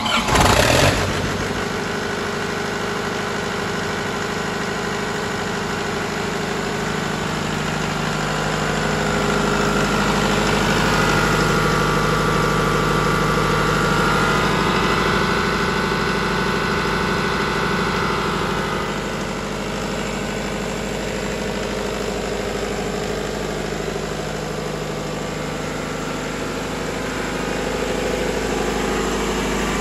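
Yanmar 4TNV98T four-cylinder turbo diesel engine of a 45 kVA generator set running at a steady speed. There is a brief loud burst in the first second, and the running is somewhat louder for several seconds in the middle.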